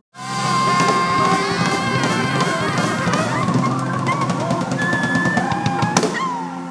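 Symphony orchestra and band playing an up-tempo Philly-soul number live, with a drum kit driving the beat under sustained orchestral notes. The sound cuts out for a split second at the very start.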